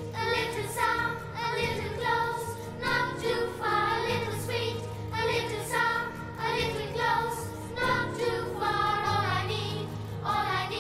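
Music with singing: a melody carried by voices over held bass notes.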